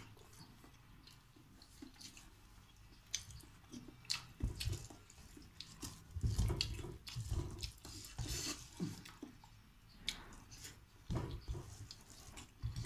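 Close-up eating sounds: wet chewing and mouth smacks, with scattered clicks and soft knocks from a hand working food in a metal bowl.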